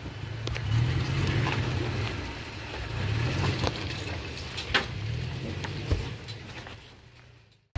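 A stock 2021 Toyota Tacoma TRD Off-Road crawling over rock ledges: a low engine drone that swells a few times as it climbs, with tyres grinding on rock and a few sharp ticks of stones underneath. The sound fades away shortly before the end.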